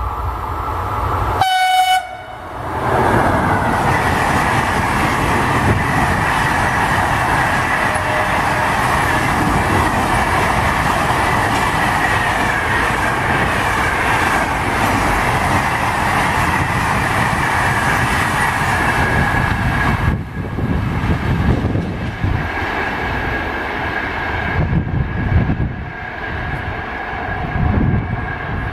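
Freight train passing at speed close by: a short horn blast about a second and a half in, then the loud steady rumble and rush of the wagons over the rails, which eases about twenty seconds in to an uneven lower rumble as the last wagons go by.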